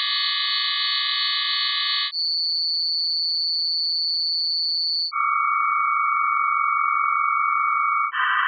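Synthesized sine-wave chords made from atomic emission lines shifted down ten octaves, each element held about three seconds. First comes polonium's cluster of steady tones, then astatine's single high steady tone, then radon's lower pair of tones. Near the end francium's denser cluster of tones begins.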